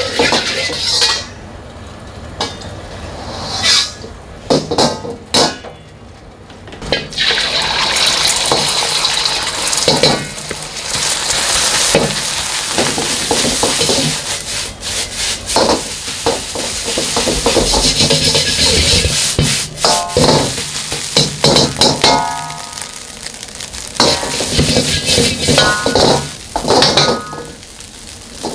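Fried rice cooking in a wok: hot oil, egg and rice sizzling while a metal ladle stirs and scrapes, with many sharp clanks of the ladle striking the wok. The sizzling grows loud about seven seconds in.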